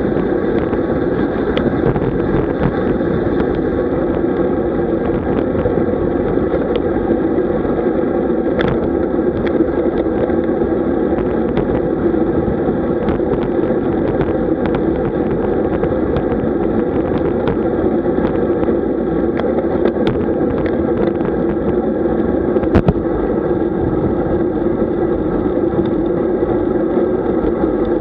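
Steady hum of a moving vehicle and road noise, with occasional sharp clicks and knocks, one louder knock near the end.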